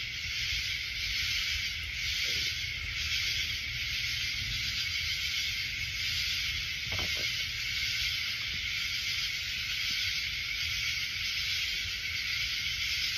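Steady high-pitched hiss of night insects calling in the woods, over a low rumble, with one faint short sound about seven seconds in.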